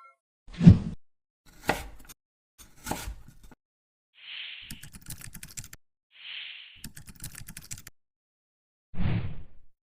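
Separate knife-chopping knocks on a cutting board, one at a time with pauses between, and two longer crackly scraping stretches in the middle.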